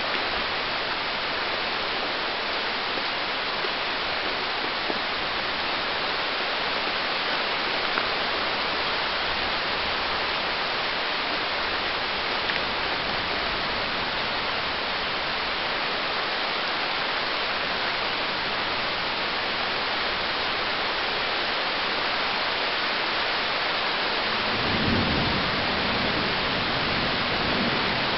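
Steady heavy rain falling, with a low rumble of thunder near the end.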